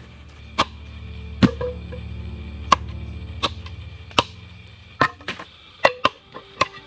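A machete chopping green wooden poles to sharpen them into pointed stakes: sharp, separate chops about one every three-quarters of a second, a few with a brief ring, over a low steady hum.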